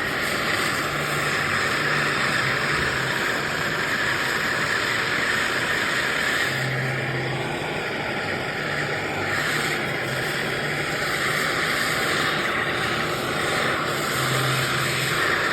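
Steady hissing noise with a faint low hum that comes and goes.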